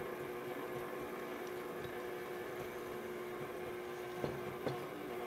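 KitchenAid Ultra Power stand mixer running steadily with its dough hook, kneading bread dough in a glass bowl: a constant motor hum. Two light knocks come near the end.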